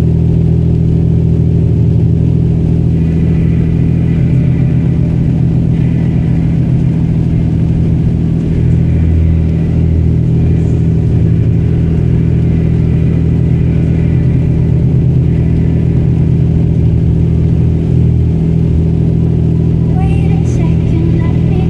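Steady low drone of a vehicle's engine and road noise while driving.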